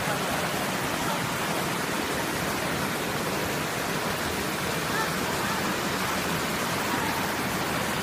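Rushing water of a shallow stream cascade at a waterfall, a steady full hiss.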